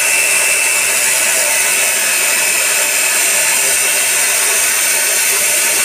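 Abrasive cut-off saw (chop saw) cutting through a metal bar, a loud, steady, high-pitched grinding screech from the wheel biting the metal.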